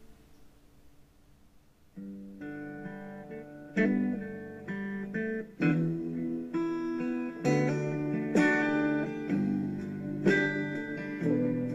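Background music: a held chord fades out, a brief near-silent gap follows, and then strummed guitar chords start about two seconds in, with a new chord about every second.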